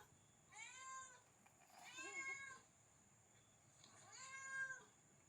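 A cat meowing three times, each meow rising and then falling in pitch.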